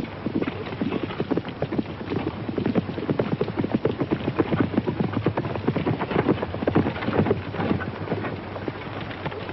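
Horses' hooves clip-clopping on dirt, a dense uneven patter of hoofbeats that grows louder toward the middle and eases off near the end, as riders come up. A steady low hum and crackle from the old film soundtrack sits underneath.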